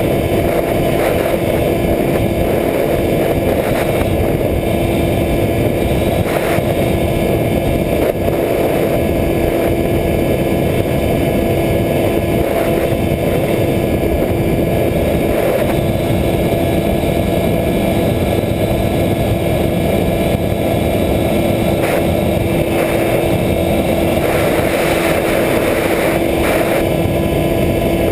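Electric motor and propeller of a Skywalker 1900 FPV plane in flight, heard from a camera on board: a steady hum holding one pitch, over heavy rushing wind noise.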